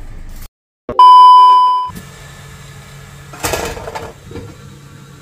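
A single electronic beep, one steady tone lasting about a second, comes in about a second in and is the loudest sound. Near the middle there is a brief burst of noise as the glass lid comes off a stainless steamer pot, over a low steady hum.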